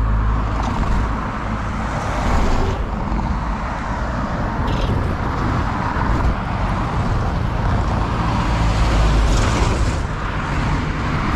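Road traffic on a busy two-lane highway: cars and a minibus passing close by, a steady noise of engines and tyres on the tarmac that swells as each vehicle goes past.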